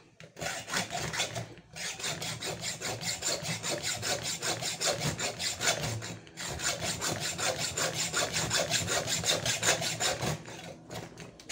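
Hand hacksaw sawing back and forth through the pin that holds a suitcase wheel, in quick even strokes with brief pauses about two and six seconds in. The pin is pressed in rather than screwed, so it has to be cut to get the worn wheel off.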